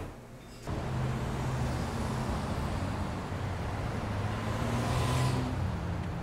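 City street traffic noise: a steady rumble and hum of road traffic that starts abruptly less than a second in, after quiet room tone. It swells around five seconds in as a vehicle passes.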